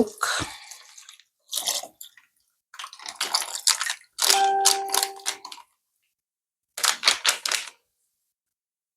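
Milk being poured into a bowl of egg, sugar and melted margarine, in several separate pours, one holding a steady pitched note for about a second midway. A short run of quick strokes follows near the end.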